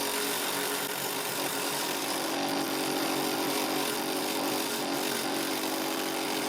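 Homemade wooden drum sander running steadily under its electric motor, a constant whirring hum.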